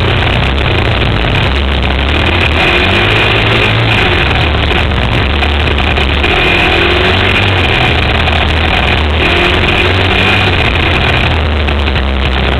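Single-cylinder sport ATV engine running hard through sand, its revs rising and falling as the throttle is worked, heard close up from a camera mounted on the quad with heavy rumble and wind.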